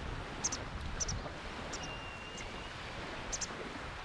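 Steady rush of outdoor wind, with a small bird giving short, high double chirps about once a second and one thin whistled note near the middle.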